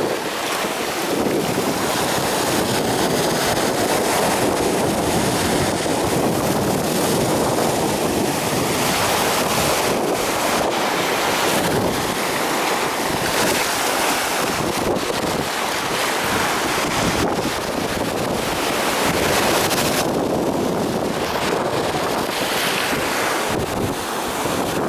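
Sea surf breaking steadily on the shore in rough water, a continuous dense rush of waves, with wind buffeting the microphone.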